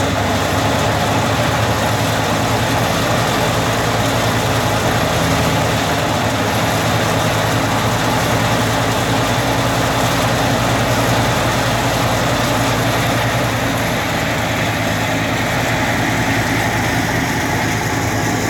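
Tractor engine running steadily, driving a wheat thresher: a constant low engine hum under the steady rushing whir of the threshing machine and its fan.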